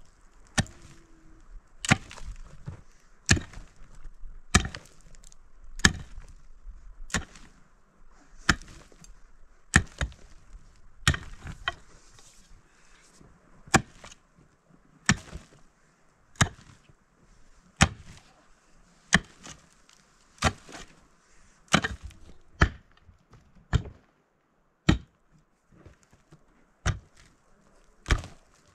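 A long-handled pick striking dry, hard soil again and again at a steady pace, about one blow every 1.3 seconds, as a pit is dug out.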